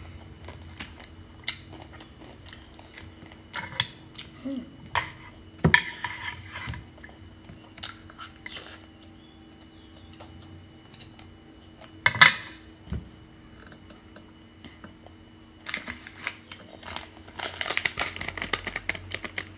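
Eating at a table: chopsticks clicking against a bowl while instant noodles are chewed, with two louder knocks along the way. Near the end a plastic snack packet crinkles in a dense run of crackles as it is handled.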